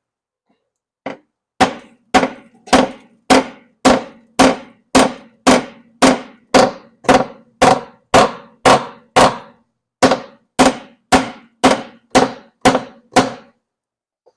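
Hammer beating out the pushed-up steel jacking point and footwell floor of a car body: about two dozen steady, evenly spaced blows, roughly two a second, each ringing briefly on the thick metal, with a short pause about ten seconds in.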